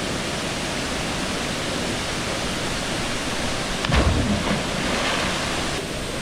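Waterfall rushing steadily. About four seconds in, a heavy splash as a person jumping from the rocks hits the water.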